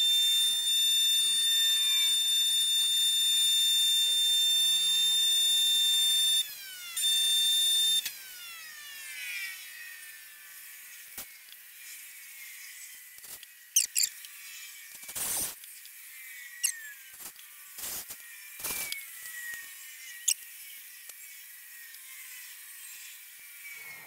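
A small handheld power tool's electric motor runs at a high, steady whine for about six seconds. It breaks off with a drop in pitch, runs again for about a second, then winds down in falling pitch. After that come scattered sharp clicks and knocks of tool and workpiece handling, a few of them louder.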